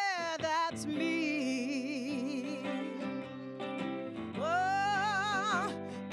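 A woman singing long held notes with wide vibrato over a hollow-body electric guitar. About four seconds in, her voice swells up into a higher held note.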